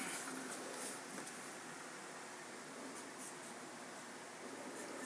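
Quiet room tone with a faint steady hiss and a few soft rustles in the first second or so.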